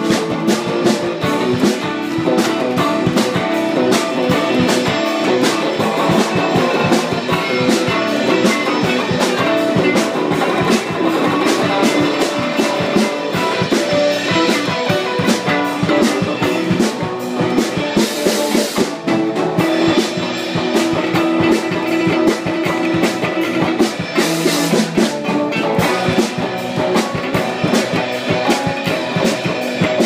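Band jamming loud rock on electric guitars, bass guitar and drum kit, with a steady beat and sustained guitar notes. Cymbal crashes ring out twice in the second half.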